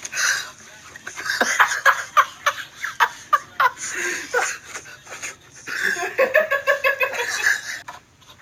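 People laughing hard, with a fast run of high-pitched laughter bursts over the last couple of seconds. Short knocks and clatter are mixed in during the first half.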